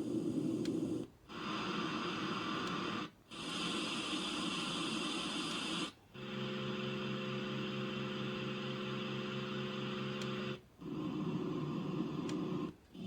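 A sunrise alarm clock's built-in sleep sounds stepped through one after another. Each is a steady hiss or whooshing noise lasting two to five seconds, and each cuts out briefly before the next begins. One longer stretch in the middle is a steady low, many-toned hum.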